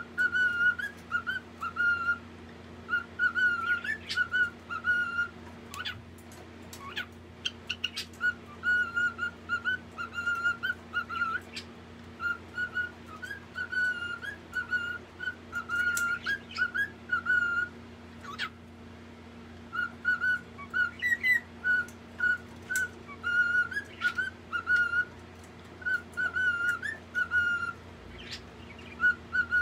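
Pet white cockatiel whistling: short, clear notes on nearly the same pitch, strung together in repeated phrases with brief pauses between them, and now and then a sharp click.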